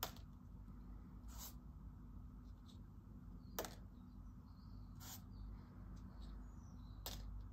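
Dry autumn leaves handled on a sketchbook page: about five short, light ticks and crackles, a second or two apart, as a leaf is picked up, laid on the paper and pressed down.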